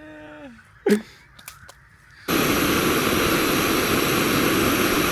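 A brief click, then, about two seconds in, a steady loud rushing noise with a faint high whine starts abruptly and holds level.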